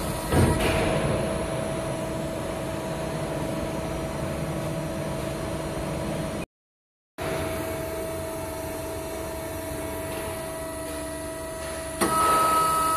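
Steady mechanical hum of an H-beam cutting machine's hydraulic power unit, with a sudden clunk about half a second in as the hydraulic grippers clamp the steel beam. The sound drops out for under a second midway, and a louder, higher tone joins the hum near the end.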